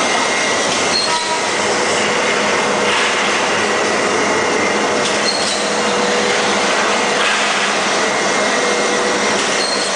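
High-speed aluminium pipe roll-forming machine running in production: a loud, steady mechanical din with faint steady whining tones through it.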